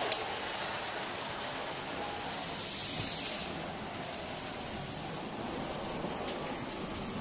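Model railway train running along a layout's track: a steady hiss that swells higher and brighter for about a second around three seconds in, with a sharp click right at the start.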